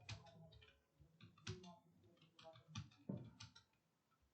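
Computer keyboard keys being typed on: scattered, irregular keystroke clicks of uneven loudness.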